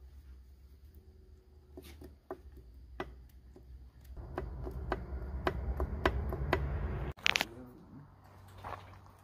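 Close handling noise: a run of light clicks, a few a second, over a low rumble, then a brief louder rustle near the end.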